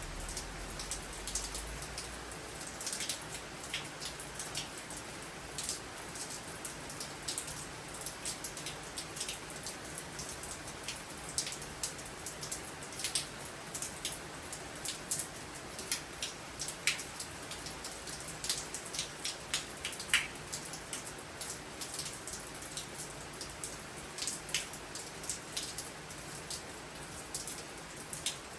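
Steady rain, with many irregular sharp drops tapping on a surface.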